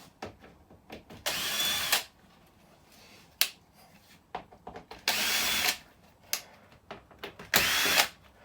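Power drill-driver backing screws out of a flat-screen TV's back cover, in three short runs of under a second each, with small clicks of screws and handling between.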